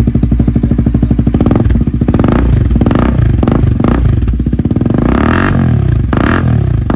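Bajaj Pulsar NS400's single-cylinder engine running through an aftermarket Akrapovič-style slip-on muffler: it idles with a steady beat, then from about a second and a half in is revved in several quick throttle blips, the pitch rising and falling each time.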